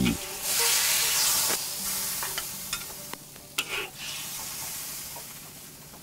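Pieces of lightly salted fish sizzling in a claypot of boiling water, oil and ginger. The hiss is strongest in the first second and a half and then dies down, with a few small pops.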